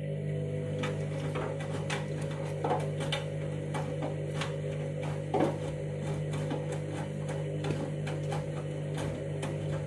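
Candy washing machine running mid-cycle: a steady motor hum, with irregular clicks and knocks.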